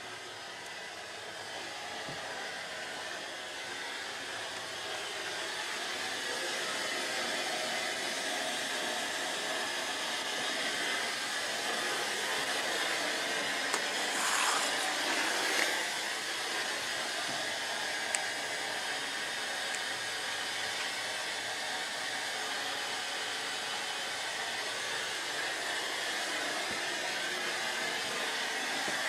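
Steady hissing noise from an audio system's speakers, slowly growing louder, with a few faint clicks and a brighter surge about halfway through.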